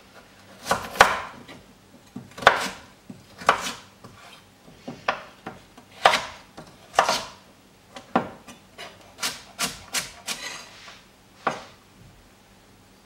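Chef's knife dicing carrots on a wooden butcher-block board: the blade knocks against the wood about a dozen times at an uneven pace, some strokes in quick pairs. The chopping stops near the end.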